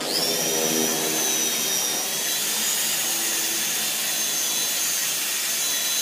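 Corded electric rotary car polisher switched on, spinning up quickly to a steady high whine as its pad works over a car door's dull paint.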